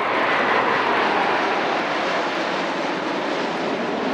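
Three SEPECAT Jaguar strike jets flying past in formation: the loud, steady jet noise of their Adour turbofan engines, loudest about a second in.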